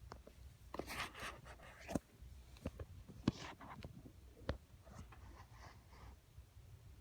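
Scattered light knocks, clicks and rustling, like things being handled and moved about, busiest about a second in, over a faint low steady hum.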